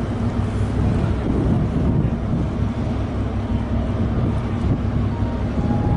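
Steady low rumble of ship and tug engines across the water, with wind buffeting the microphone.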